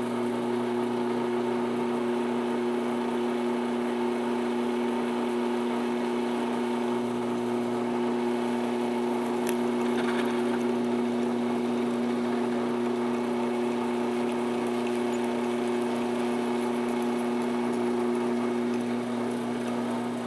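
Drill press running at its lowest speed with a steady hum, its quarter-inch twist bit drilling into oiled square steel tubing.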